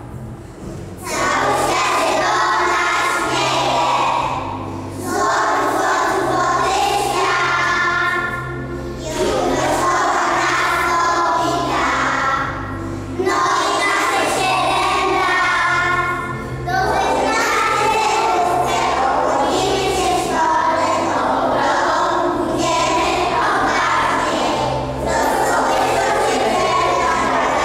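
A group of young children singing a song together to musical accompaniment, in phrases of about four seconds with short breaks between them; the singing starts about a second in.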